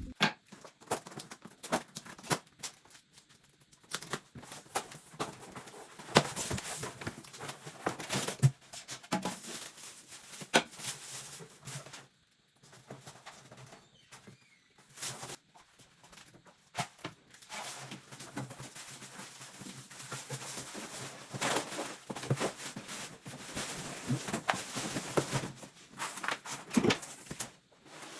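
Handling noises: irregular sharp knocks and clicks with rustling and tearing between them, pausing briefly about halfway through.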